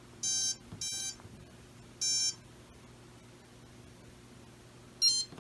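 Maytag electric dryer's electronic control panel beeping as its buttons are pressed: two short high beeps in quick succession, another a second later, then a pause and one more near the end.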